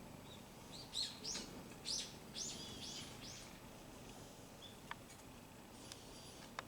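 Small birds chirping: a quick run of short, high calls, most of them between about one and three and a half seconds in, with a few sharp clicks near the end.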